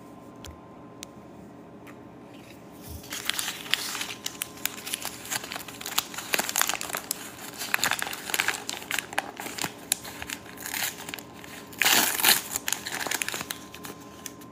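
Foil wrapper crinkling as hands crumple it and tear it open, a dense crackle that starts about three seconds in and is loudest near the end.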